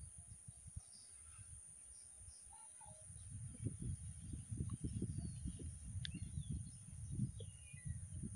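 Rural pond-side ambience: a steady high-pitched insect hiss with a few faint bird chirps, and low rumbling on the microphone that sets in about three seconds in.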